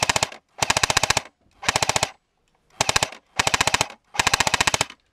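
Airsoft electric gun firing six short full-auto bursts, each a rapid, even rattle of shots about half a second long, with brief pauses between bursts.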